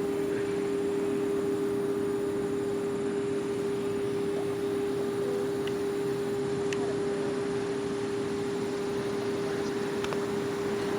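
Federal Signal 3T22A three-tone rotating outdoor warning siren sounding a steady alert tone, a chord held at one pitch with no rise or fall. The steady alert comes from a siren that usually does hi-lo.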